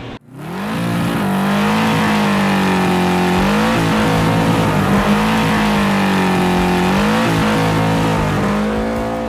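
Car doing a burnout: the engine is held at high revs while the rear tire spins on the pavement with a steady hiss. The revs climb about a second in, dip briefly twice and pull back up.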